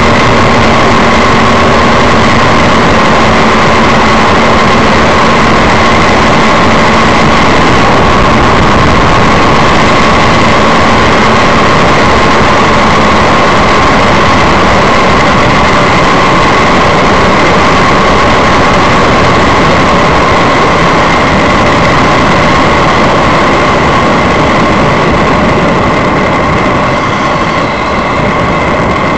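Microlight trike's engine and pusher propeller running steadily in flight, with heavy wind rush on the onboard microphone and a steady whine in the engine note. The sound eases a little near the end as the trike comes down low over a grass strip to land.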